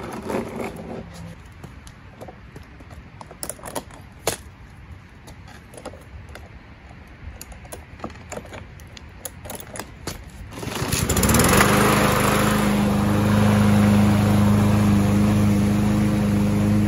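Scattered knocks and clicks from handling a gas walk-behind rotary lawn mower and fitting a plastic pipe striper roller to it, then about ten seconds in the mower's small engine starts, its pitch rising quickly, and settles into a steady run.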